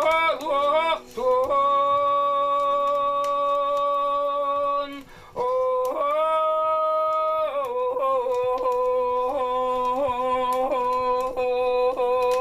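A man's ritual chant in the Yakut manner, with yodel-like breaks in the voice: a few short wavering notes, a long held note, a brief break, a second held note a little higher, then a note pulsing about twice a second to the end.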